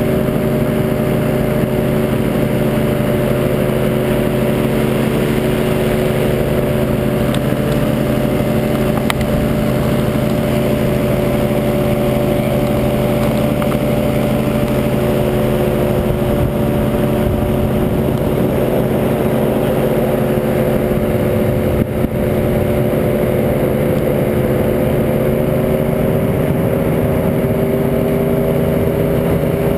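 Tandem paramotor trike's engine and propeller droning steadily in flight, its pitch rising slightly near the end.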